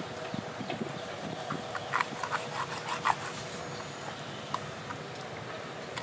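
Wet squelches and sharp clicks of a shark being gutted by hand and knife on a cutting board: the innards being pulled loose and cut, with a cluster of louder clicks about two to three seconds in.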